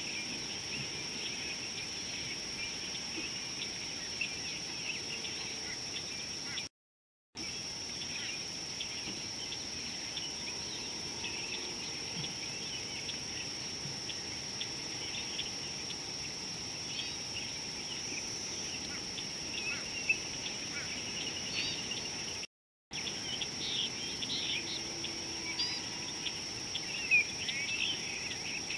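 Steady high-pitched insect drone with many short bird chirps and calls over it, the birdsong busier and louder near the end. The audio cuts out completely twice, briefly, about a quarter of the way in and again later.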